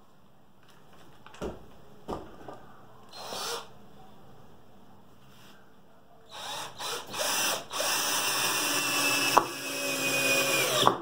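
Cordless drill-driver working into a plywood piece: a couple of knocks from handling the wood, then short bursts of the drill that turn into a steady run of about three seconds, with a brief stop partway, as it drives a screw home.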